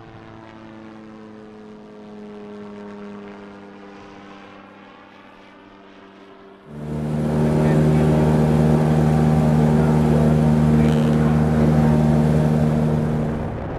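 Terrafugia Transition flying car's propeller engine droning steadily as it flies past, with a slowly sweeping, hollow phasing over the tone. About seven seconds in, the sound cuts abruptly to a much louder, close, steady light-aircraft propeller drone recorded in flight.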